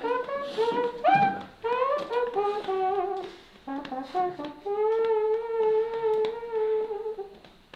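A wordless melody in single notes with glides between them. It ends on one long held note of about two and a half seconds, which stops about seven seconds in.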